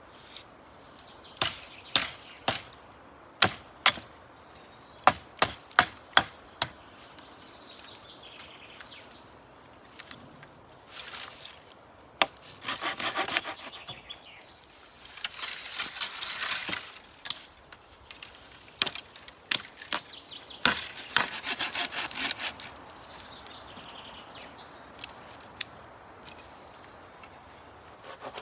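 Wood being worked by hand: a string of sharp knocks in the first seven seconds, then a saw cutting through wood in runs of quick back-and-forth strokes, with a few more knocks about two thirds of the way in.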